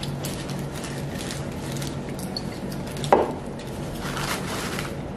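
Paper taco wrappers crinkling and rustling as they are handled and unwrapped, with one short loud sound that falls in pitch about three seconds in, over a steady low hum.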